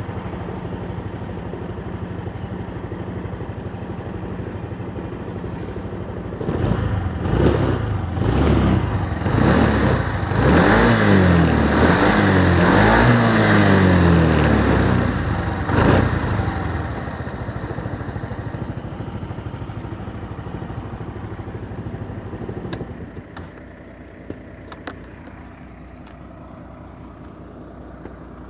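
Honda SES125 Dylan scooter's 125 cc single-cylinder four-stroke engine idling steadily, then revved repeatedly with the throttle blipped up and down, before settling back to idle. About two-thirds of the way through the engine sound drops away, followed by a couple of light clicks.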